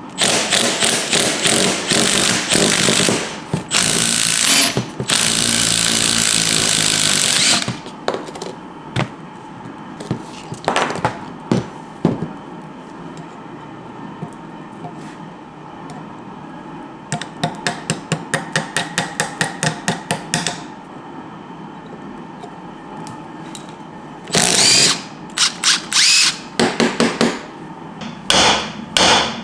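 Impact wrench hammering in several bursts of a few seconds each on rusted rear-suspension fasteners, then a quick series of sharp knocks at about four a second, with more bursts near the end.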